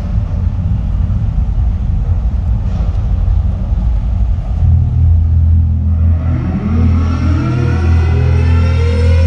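Hockey team intro soundtrack over an arena sound system: a loud, deep rumble, joined from about six seconds in by a steadily rising pitch sweep that builds toward the music.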